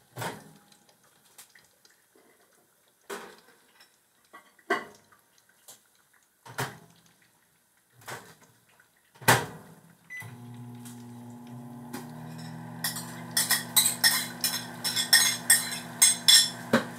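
Scattered knocks and clatter of dishes, then about ten seconds in a microwave oven starts running with a steady hum. From about thirteen seconds, rapid clinking of dishes and cutlery over the hum.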